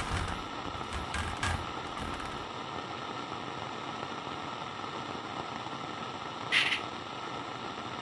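Walkie-talkie static: a steady radio hiss, with a few low thumps and clicks in the first two seconds and a short burst of sharper crackle about six and a half seconds in.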